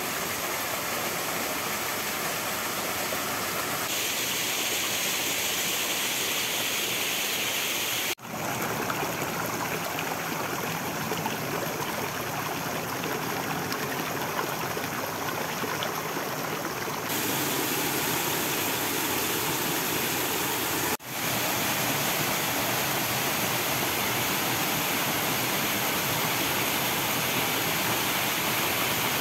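Running water: a steady rush of flowing water, with a brief dropout about 8 seconds in and again about 21 seconds in.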